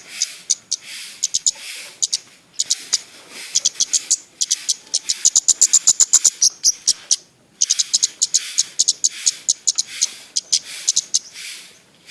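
Citbang songbird singing vigorously: phrases of rapid, sharp, high chirps, each a second or so long, repeated with short pauses between them.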